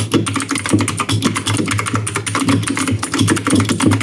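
Fast typing on a Redragon K552 Kumara mechanical keyboard with clicky blue switches: a dense, steady run of sharp key clicks.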